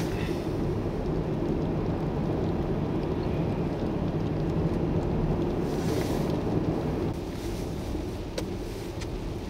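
Vehicles driving on a snow-covered highway: a steady low engine and road rumble, with tyres hissing through the snow as a vehicle passes about six seconds in.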